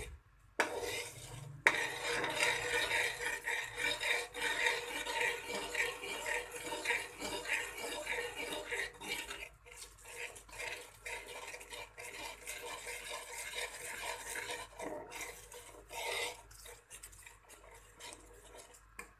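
A spoon stirring and scraping atta halwa in a cooking pan as it thickens and starts to bubble: a busy, continuous run of scrapes and light clinks against the pan, with one sharp knock about a second and a half in, thinning out near the end.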